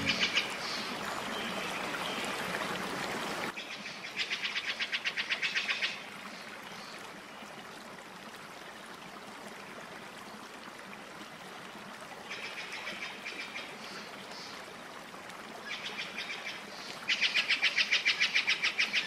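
Countryside ambience of rapid, evenly pulsed chirping trills from birds or insects, coming in bursts of one to two seconds, with a steady hiss in the opening seconds that cuts off suddenly.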